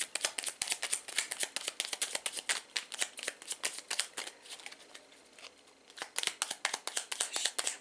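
A deck of divination cards shuffled by hand: a quick run of light card clicks that dies down briefly about five seconds in, then resumes.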